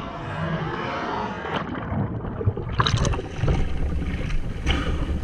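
Muffled water rushing heard through a submerged board-mounted camera after a windfoil fall. About three seconds in, the camera breaks the surface and water splashes and slaps against the board.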